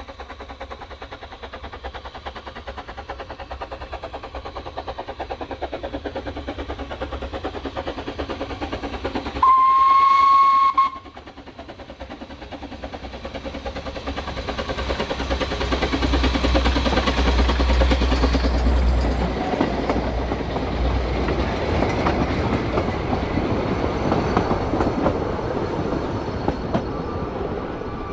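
Narrow-gauge steam locomotive working a train toward and past, its rapid exhaust beats growing steadily louder. It gives one whistle blast of about a second and a half, about ten seconds in. It is loudest as it passes, then fades.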